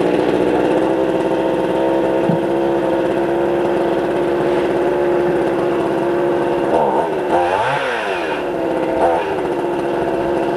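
Two-stroke chainsaw running at high revs, loud and steady. The engine speed sags and picks back up about seven to eight seconds in, and again briefly near nine seconds.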